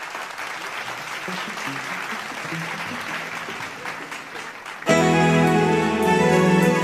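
Audience applauding, with a few faint instrument notes beneath. After about five seconds a live band comes in loudly, playing the opening of the song.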